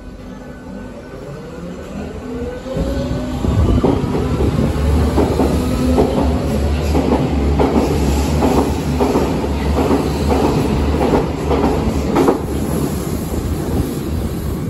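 Berlin U-Bahn H97 train pulling away from the platform: the electric drive whines, rising in pitch over the first few seconds as it starts off. Then a loud rumble sets in, with a rhythmic clatter of wheels over rail joints that comes a little faster as the train speeds past.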